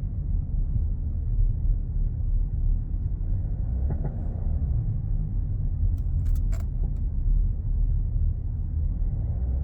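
VW Touareg 7P on the move, with a steady low road and running rumble. A short cluster of sharp knocks comes about six seconds in: the front-suspension knock the owner puts down to worn control arms.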